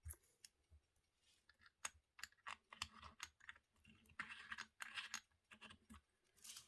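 Faint, scattered clicks and short scrapes of small metal parts as a titanium wristwatch and its caseback are handled, with a busier patch of scraping about four to five seconds in.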